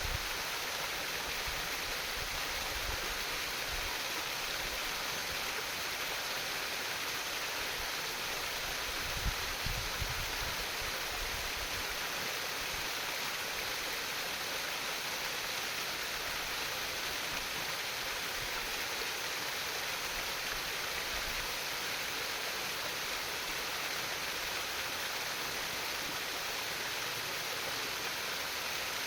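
Water of a shallow stream trickling and babbling steadily, with a few soft low bumps about nine to ten seconds in.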